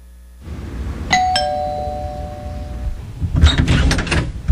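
Two-tone doorbell chime, a higher note then a lower one (ding-dong), each ringing out for about two seconds, followed about two seconds later by a short clatter of knocks.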